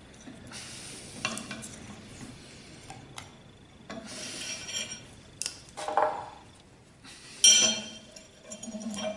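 Tape being pulled off the roll and wound around the handle of a leaf-spring body slapper: several short crackling rasps of peeling tape, the loudest near the end, with a few sharp clicks in between.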